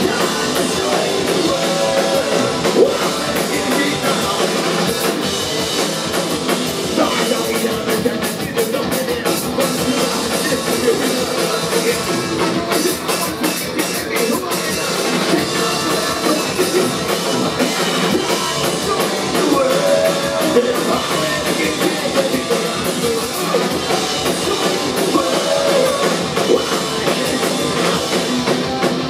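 Punk rock band playing live: electric guitar, bass guitar and drum kit, with the singer singing into a handheld microphone.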